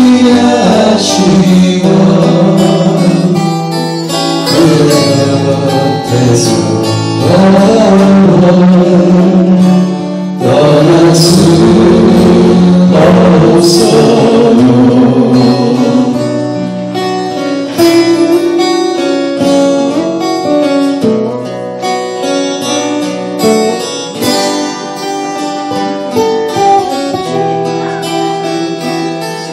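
Live acoustic-guitar trio playing a Korean ballad, several acoustic guitars strummed and picked under a man's singing. About halfway through the singing drops out and the guitars play on alone.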